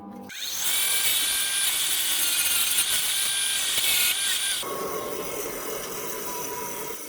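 Small power tool running against a steel bolt, cleaning it up to a shine: a steady high whine that about two-thirds through turns quieter and duller.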